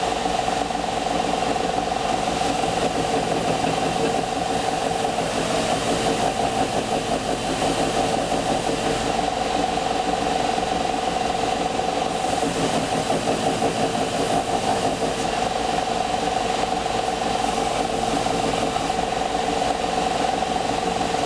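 Electric power tool motor running steadily at constant speed with a steady hum and whine over a hiss, shaping a hard pecan wood knife handle.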